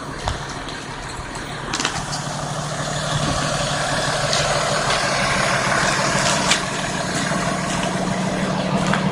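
Fire rescue truck's diesel engine idling steadily, getting louder about three seconds in.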